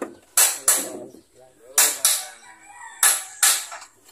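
Hammer blows on metal, mostly in pairs about a third of a second apart, each ringing briefly.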